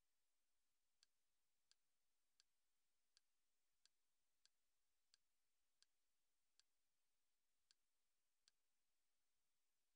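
Faint menu-navigation click sounds from a Kodi media-centre build's interface, eleven short, high-pitched ticks at roughly one every three-quarters of a second, one for each step of scrolling through the menu.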